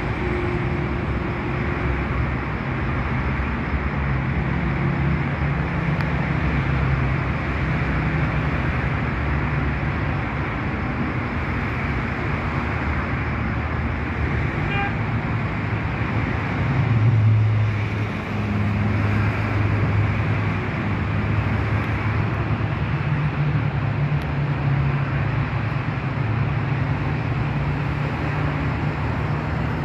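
Steady road traffic noise with a low engine hum that shifts in pitch, swelling as a louder vehicle passes about seventeen seconds in.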